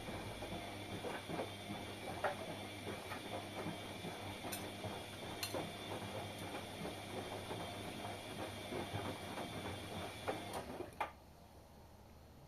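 Washing machine running: a steady motor whine with many small clicks and rattles, cutting off suddenly about eleven seconds in.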